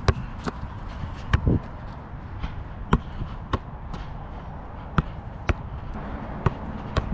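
Soccer ball being passed, kicked and caught in goalkeeper training: a series of about ten sharp thuds and slaps, spaced half a second to a second and a half apart, over a steady low background noise.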